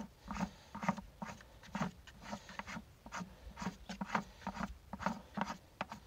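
Threaded fitting being screwed by hand onto the wall of a plastic bucket: rhythmic rubbing and scraping of plastic on plastic, a short stroke a little more than twice a second, one for each turn of the hand.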